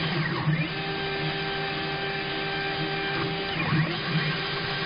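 Stepper motor of a CNC-converted 9x20 lathe jogging an axis. Its whine glides in pitch as it speeds up, holds one steady tone for about three seconds, then glides again as it slows and stops, over a low steady hum.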